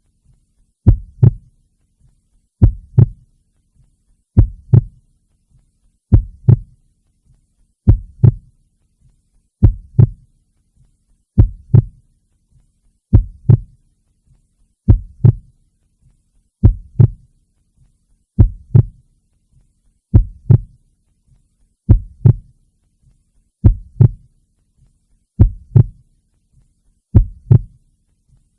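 Heartbeat sound: a slow, steady lub-dub, each beat a double thump, about every one and three-quarter seconds.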